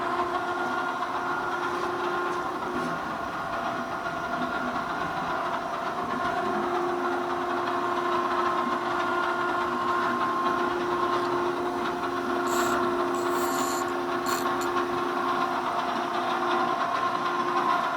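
Okamoto ACC-12.24ST surface grinder running: a steady mechanical hum with several held tones from the spindle and table drive, with a few short hissy bursts around 13 to 14 seconds in.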